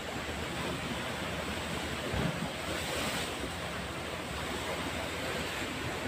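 Steady rushing noise of sea surf and wind, with a brief low thump about two seconds in.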